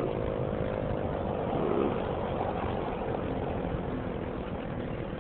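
T-128 outdoor tornado siren's tone growing faint and dying away, over a steady low vehicle rumble.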